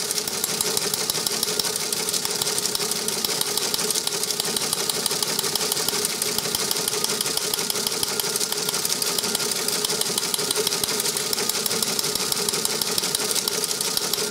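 Teletype Model 28 KSR printing incoming radioteletype copy with its cover open: a rapid, even clatter of the type box and hammer striking, over a steady hum. The signal is locked in and the machine is printing clean copy.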